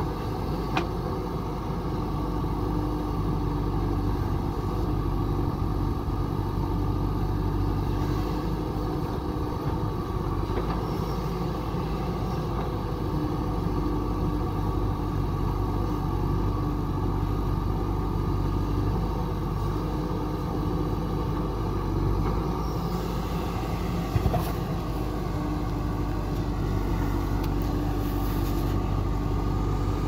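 JCB 3DX backhoe loader's diesel engine running steadily under load while the backhoe digs and swings. Near the end there is a brief clank and a spell of clatter as the bucket dumps its load.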